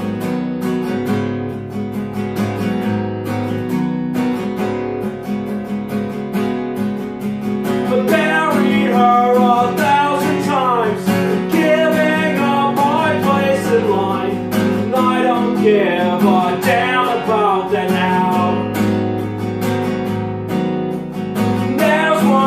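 Acoustic guitar strummed steadily, playing the instrumental passage between the song's sung lines.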